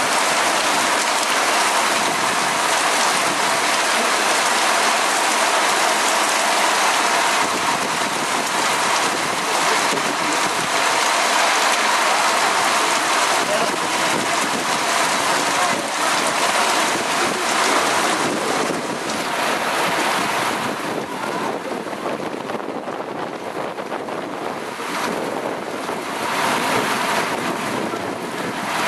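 Heavy thunderstorm downpour with wind: a dense, steady hiss of rain that eases a little about twenty seconds in.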